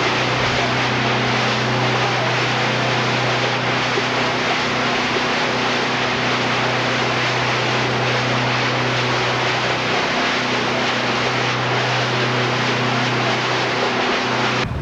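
Motorboat engine running steadily at speed, a constant drone, with the rush of water spraying off the hull.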